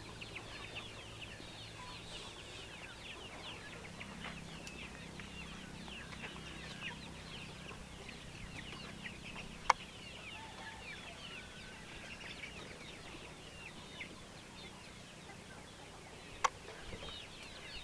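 A flock of Giriraja chickens peeping and chirping without a break, many short high falling calls overlapping. Two sharp clicks, the loudest sounds, come about ten and sixteen seconds in.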